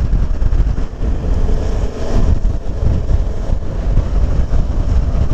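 Motorcycle engine running under way, mixed with a steady, gusty rush of wind over the microphone.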